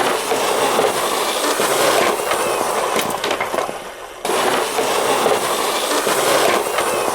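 Toy minicars rolling and clattering along a track, a dense rattle of small wheels and bodies. It fades briefly about four seconds in and then comes back suddenly.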